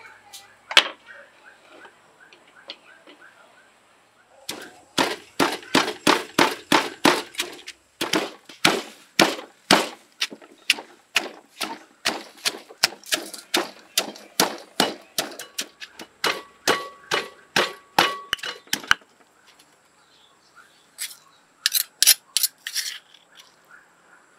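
Stone pestle pounding chillies and shallots in a stone mortar: a steady run of knocks, about two to three a second, for roughly fifteen seconds. Near the end comes a short quick cluster of sharper clinks from a metal spoon against the mortar.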